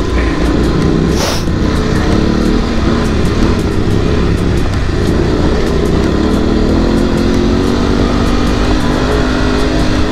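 Adventure motorcycle engine running steadily under throttle on a gravel road, with a brief hiss about a second in.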